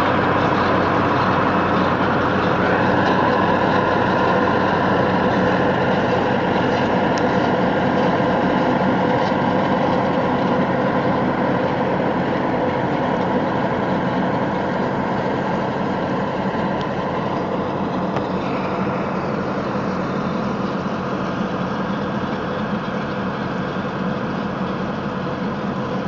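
Tractor-driven Verti-Quake 2516 deep-tine decompaction machine running steadily as it works turf, with the tractor engine and the PTO-driven tine rotor making a constant rumble. A high whine rides over the rumble and fades out a little past the middle.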